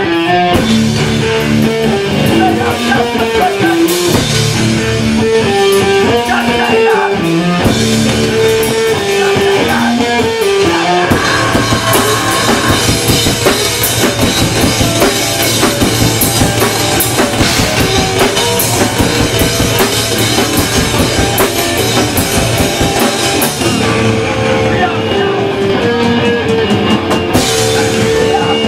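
Live hardcore punk band playing an instrumental passage: guitar riff over a drum kit, with the full band coming in denser and harder about eleven seconds in, and the opening riff returning near the end.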